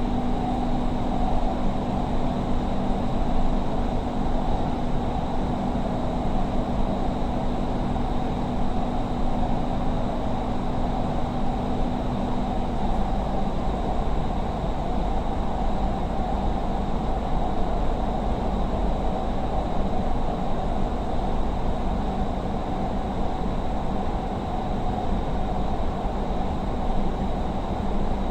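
Doha Metro train running between stations, heard from inside the carriage: a steady rumble and hum of wheels and motors on the track, with a low steady tone that fades away about halfway through.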